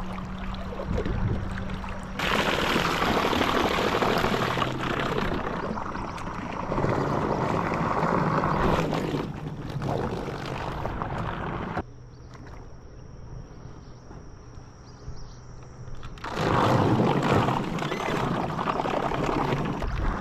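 Rushing water of a fast river current around a small boat, a loud steady wash that drops abruptly about twelve seconds in and swells back about four seconds later.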